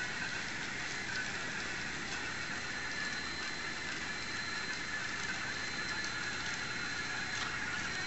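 Roomba robots' drive motors running steadily: a soft, even whir with a thin high whine over it and a few faint ticks.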